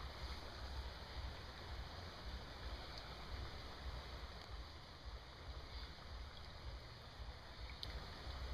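River water running steadily, an even rushing sound with a low rumble underneath.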